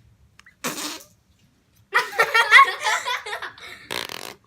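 A short fart-like noise about half a second in, then a child laughing, then another brief noisy burst near the end.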